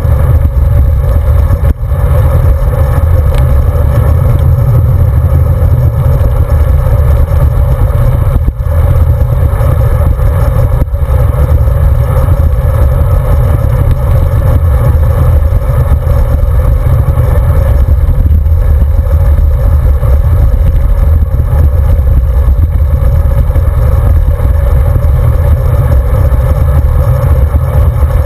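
Wind buffeting the microphone of a handlebar-mounted camera on a road bike riding at speed, a steady heavy rumble, with tyre and road vibration from rough asphalt underneath.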